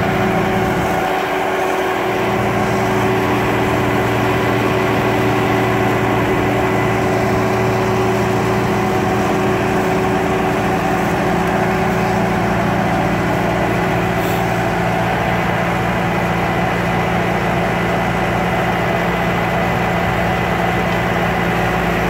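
Bobcat S300 Turbo skid-steer loader's diesel engine idling steadily.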